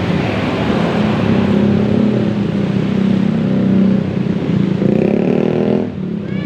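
Diesel engine of a large bus running loud as it passes close by, rising in pitch as it accelerates, then dropping off suddenly near the end.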